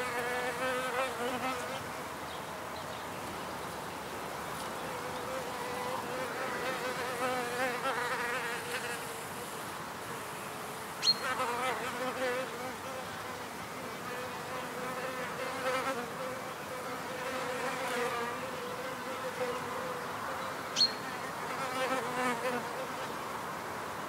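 Wild bees buzzing at their hive: a steady hum, with single bees' wingbeats swelling and fading as they fly past. Two short, sharp ticks about ten seconds apart stand out above the buzz.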